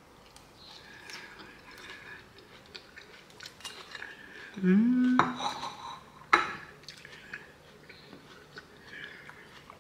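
A person chewing a mouthful of salad, with a metal fork clinking against a plate; sharp clicks come about five and six seconds in. A short appreciative "mmm" hum rises just before them.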